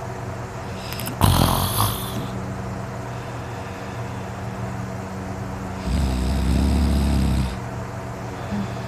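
A sleeping man snoring: a short sharp snort about a second in, then one long snore of about a second and a half near the end.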